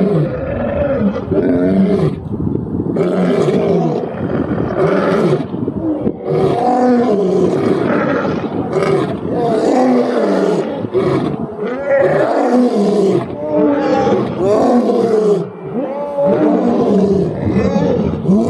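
Lions roaring in a continuous bout, one loud call after another, each rising and falling in pitch, without a pause.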